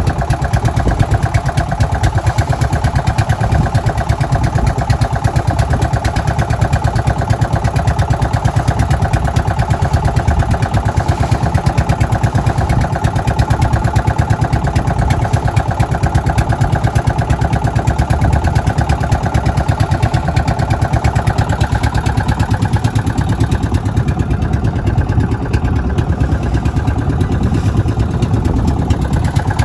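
Small petrol engine of a wooden sampan running steadily under way.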